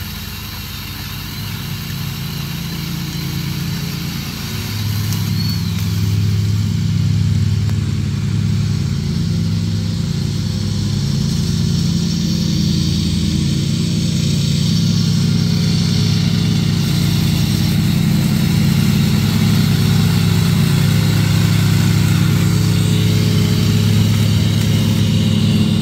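Riding lawn mower engine running steadily, getting louder about five seconds in and then holding.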